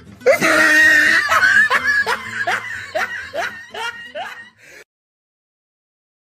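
Laughter sound effect: a run of short rising 'ha' bursts, about two to three a second, fading away and cutting off abruptly a little under five seconds in, followed by dead silence.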